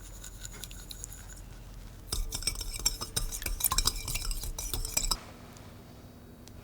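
A metal utensil clinking and scraping rapidly against cookware, as in stirring, for about three seconds from about two seconds in, then stopping abruptly.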